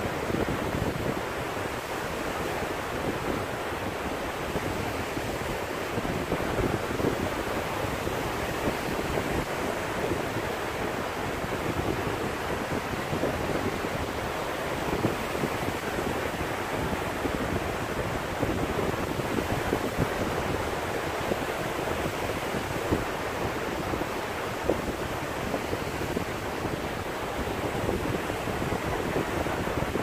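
Small sea waves breaking and washing over a sandy beach, a steady surf wash, with wind buffeting the microphone.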